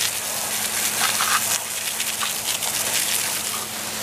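Garden hose spray hitting a truck's tyre and chrome alloy wheel: a steady hiss of water rinsing foaming wheel cleaner off the wheel.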